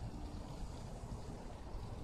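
Wind on the microphone: a steady low rumble with a fainter rush above it.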